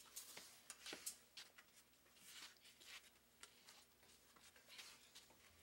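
Near silence with faint, scattered clicks and light scrapes of spoons and forks on bowls and plates as food is served and eaten.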